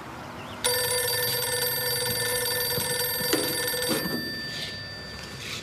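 Electric warning bell ringing steadily, starting suddenly about half a second in and dying away after about three seconds, with a single click partway through.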